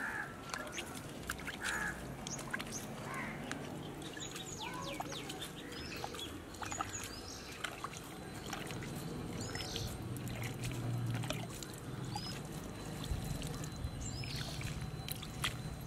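Birds chirping and calling in short calls throughout, with water splashed by hand from a small plastic mug onto garden plants. A low hum comes in behind them in the second half.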